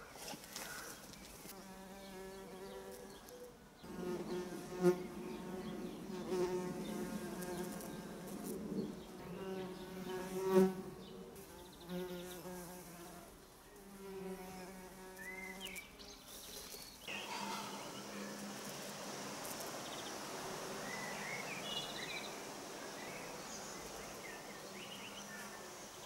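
Bumblebees, taken by the owner for tree bumblebees (Bombus hypnorum), buzzing inside their nest in a woven-stick hive: a low hum that swells and fades in waves and drops away about two-thirds of the way through. A few faint bird chirps come in near the end.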